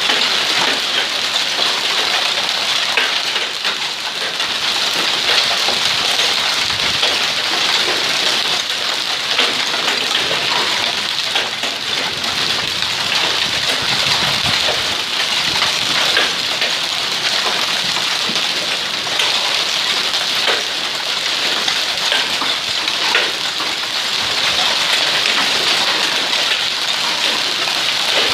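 Heavy hail mixed with rain falling steadily: a dense, loud hiss made of countless small hailstone impacts pattering on the ground, foliage and the water of a swimming pool.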